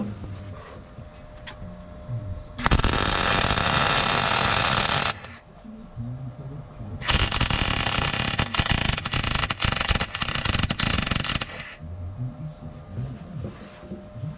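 Electric arc welding on the steel mount of a mini excavator's dozer-blade cylinder: two runs of steady crackling hiss, the first about two and a half seconds long, the second about four and a half seconds, with a short pause between.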